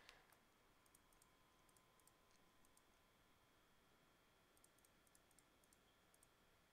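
Near silence, with faint computer mouse clicks in small clusters as captcha squares are selected.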